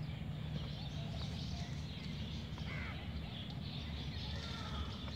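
Outdoor ambience: a steady low rumble with birds chirping now and then.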